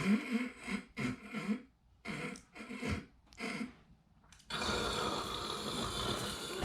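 A man snoring: a series of short, rasping snores broken by brief silent gaps. The snoring stops about four and a half seconds in, leaving a steady hiss.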